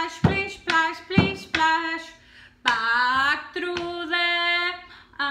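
A woman chanting in a sing-song voice: a string of short, clipped syllables, then longer drawn-out notes about halfway through.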